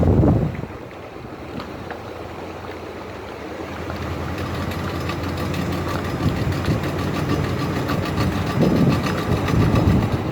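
Jeep Grand Cherokee WJ driving through a turn, with a rapid, even ticking that grows louder as it goes. The owner suspects a bad CV axle. Low buffeting on the microphone comes near the start and again near the end.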